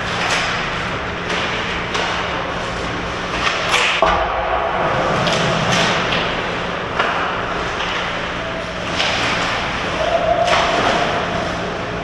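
Ice hockey skates scraping and carving the ice in repeated short strokes, with sticks and puck clattering in front of the net and a sharp knock about four seconds in as a shot comes at the goal. Echoing in a large rink.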